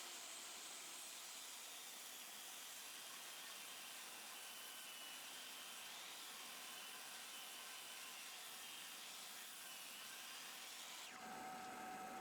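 Table saw running faint and steady, ripping hardwood boards into 3/4-inch strips, with a slightly wavering high whine. Near the end the sound changes to a steadier hum with a clear pitched tone.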